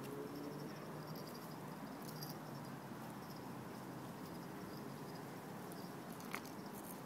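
Faint steady background hiss with light clicks of pebbles shifting under a miniature pinscher puppy's paws, and one sharper click near the end.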